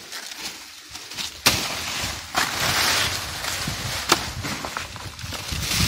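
A long-handled foice (brush hook) chopping into a banana stalk: three sharp chops about a second apart, with rustling of leaves and brush after the first.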